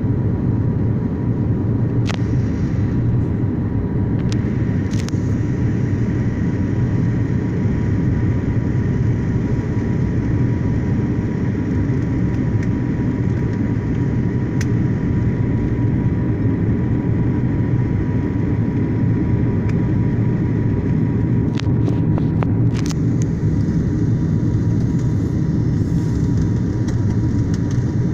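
Airliner cabin noise: a steady, deep rumble of the aircraft's engines and airframe heard from inside the passenger cabin, with a thin steady whine and a few light clicks.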